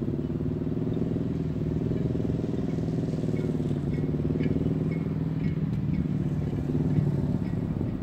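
An engine running steadily at an even pitch, with short high chirps repeating from about three seconds in.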